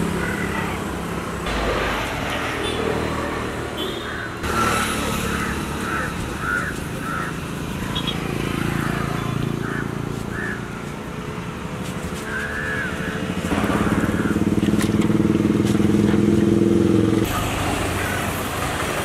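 Motor vehicles running past on a road. One engine is louder for a few seconds late on, and a run of short high chirps comes earlier.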